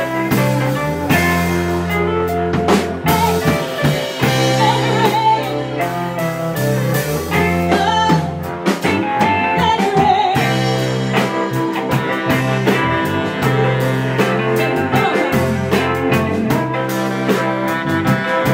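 Live R&B band playing a slow soul number: a woman singing with vibrato over electric bass, drums and keyboard.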